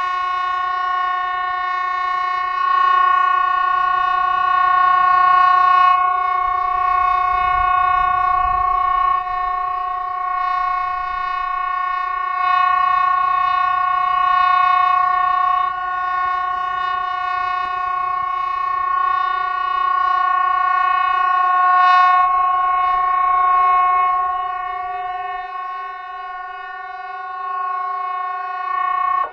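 Hesa Fredrik civil defence siren sounding one steady, unbroken tone made of several pitches at once, held for about half a minute without rising or falling and swelling a little in loudness now and then. A continuous tone this long is the siren's all-clear ('danger over') signal.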